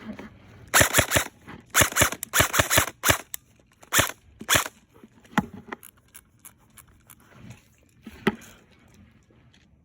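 Airsoft guns firing in several quick bursts of sharp cracks during the first five seconds, followed by a few scattered single shots.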